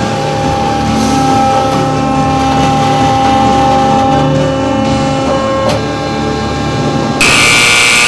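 Background music, then about seven seconds in a loud, harsh buzzer sounds and holds steady: the baler's alarm signalling that a bale is made.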